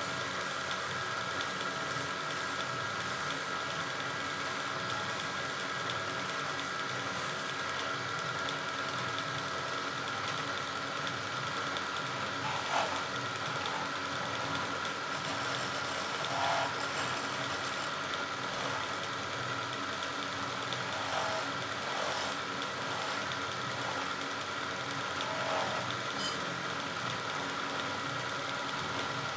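Wood lathe running with a steady hum while a hand chisel cuts a small spinning wooden spindle. A few brief louder catches come in the second half.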